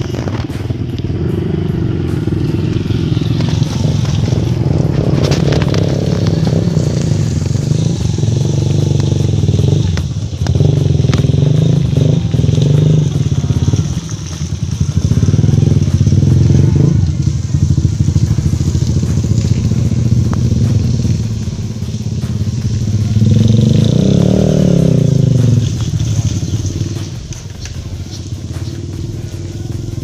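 Motorcycle engines running steadily on a muddy dirt track. Late on, one engine revs up and drops back down.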